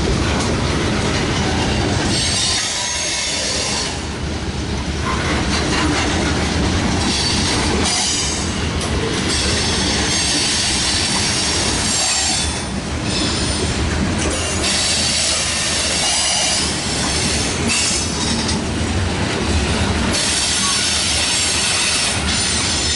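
Freight train of covered hoppers and tank cars rolling past, steel wheels running on the rails with high-pitched wheel squeal coming and going every few seconds.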